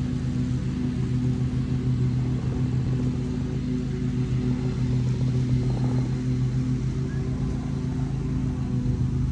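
A steady low engine-like drone with a constant hum that does not change in pitch.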